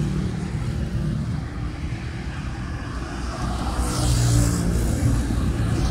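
Road traffic passing close by: steady engine and tyre noise, louder about four seconds in as a vehicle goes past.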